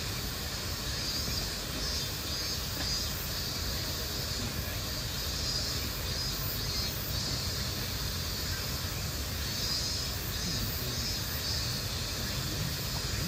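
Steady outdoor background noise: a continuous hiss over a low rumble, with no distinct event standing out.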